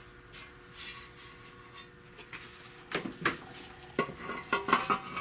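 Buick trim pieces clinking and knocking as they are handled against the anvil, several short metallic clatters starting about three seconds in after a quiet stretch.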